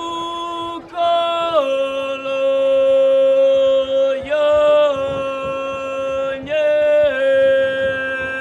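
A boy's solo voice sings unaccompanied folk song in long held notes that step between a few pitches. There are short breaks for breath about a second in, at about four seconds and at about six and a half seconds.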